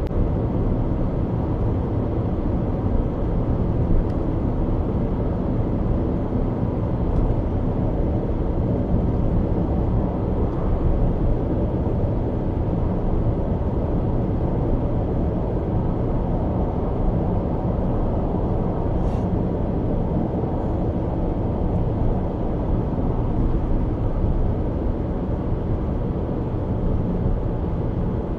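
Car cruising at motorway speed, heard from inside the cabin: a steady low rumble of road, tyre and engine noise, with a few faint ticks.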